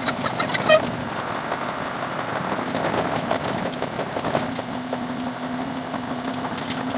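Running noise of an Ohmi Railway local train heard from the cab, sped up tenfold into a dense, rapid clatter over a steady low hum. A short, high pitched squeak stands out under a second in.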